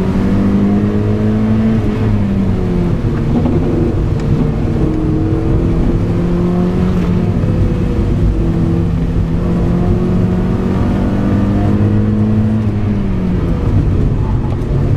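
Mazda MX-5 NB's four-cylinder engine heard from inside the cabin, revs climbing slowly and then dropping off sharply, once about two seconds in and again near the end.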